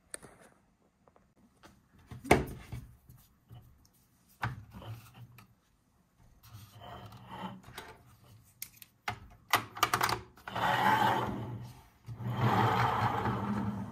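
Plastic Bluey's Big Bus toy handled on a tabletop: a few sharp clicks and knocks as pieces and figures are set in place, then its plastic wheels rolling and rubbing across the table in two longer stretches near the end.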